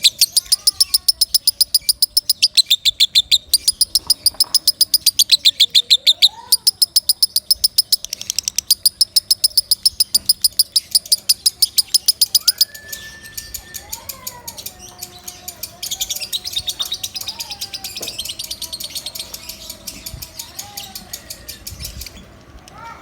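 Lovebird singing loudly in a fast, even run of sharp high chirps, about five or six a second, which breaks off about twelve seconds in. Quieter, less regular chirping with some lower gliding whistles follows.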